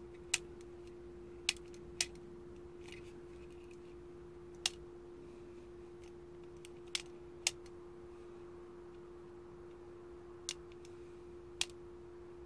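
Small sharp plastic clicks, about eight spread irregularly, from a dismantled Mercedes ignition switch being handled and its key barrel turned through its positions against the spring-loaded cams and contact pins. A faint steady hum runs underneath.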